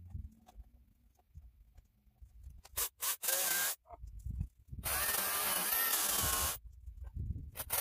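Electric chainsaw cutting into a log in two short bursts, the first just under a second long and the second nearly two seconds, its pitch wavering as the chain bites.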